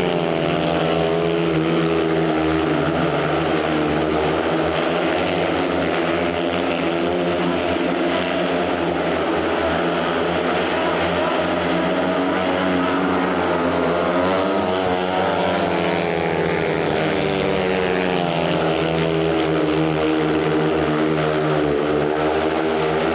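500 cc single-cylinder speedway motorcycles racing at full throttle. The engine pitch rises and falls repeatedly as the riders power down the straights and slide through the turns.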